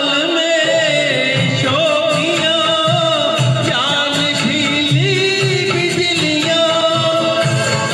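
A man singing a Hindi film song into a handheld microphone over instrumental backing music, his voice carrying a wavering, ornamented melody.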